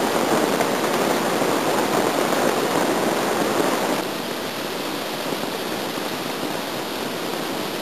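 Steady rush of a whitewater rapid pouring between boulders. It is a little louder for the first four seconds, then steps down slightly and stays even.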